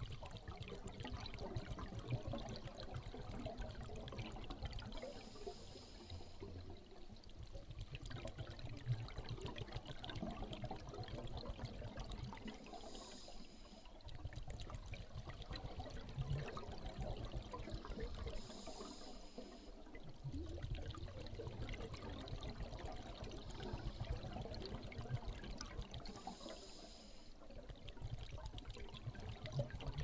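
Scuba diver breathing through a regulator underwater: bubbling of exhaled air, broken about every six or seven seconds (four times) by a short hiss of inhalation.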